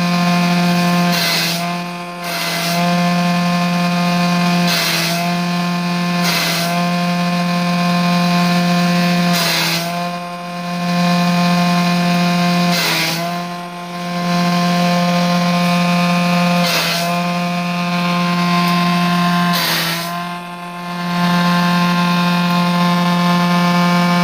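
Electric grass chopper with a 2 hp electric motor running at full speed, a steady high hum with a rough chopping noise every couple of seconds as material goes through the blades. Four times the pitch and level briefly sag, the motor pulled down under load.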